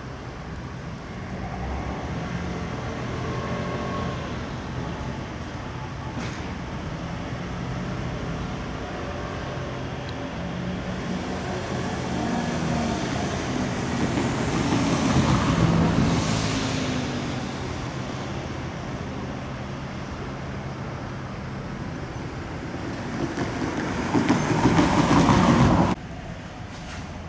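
Railway train running, with a steady low hum. The noise grows loud about halfway through, eases, then builds to its loudest near the end before cutting off suddenly.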